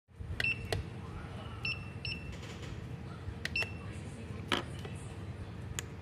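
Keypad beeps from a remote-control code duplicator as its buttons are pressed to bring up frequency-detect mode: four short high beeps, spread over about three seconds, with a few sharp plastic key clicks between them.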